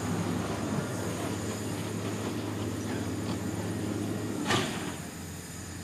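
Standing steam locomotive No. 778 with its tender being filled from a water tower: a steady low hum, broken by one sharp clank about four and a half seconds in, after which the hum drops away and the sound goes quieter.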